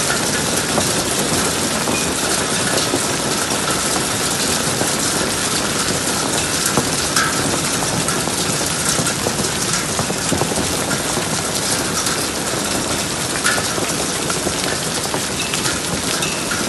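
Hail falling with rain: a dense, steady downpour peppered with many small sharp ticks of ice stones striking.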